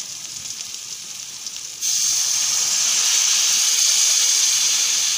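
Fried masala paste sizzling quietly in a kadai. About two seconds in, water poured from a bottle hits the hot oil and sets off a sudden loud, steady hissing sizzle that keeps on as the pour continues.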